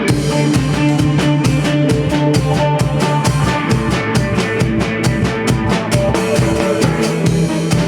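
Band playing an instrumental passage: a drum kit keeps a steady beat under held instrument notes.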